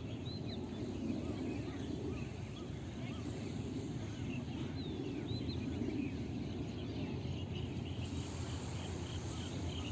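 Open-air ambience: a steady low background noise with scattered short bird chirps, and near the end a quick run of chirps, about four a second.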